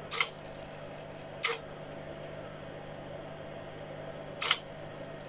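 Three short, sharp clicks: one right at the start, one about a second and a half later and one about three seconds after that, over a faint steady electrical hum.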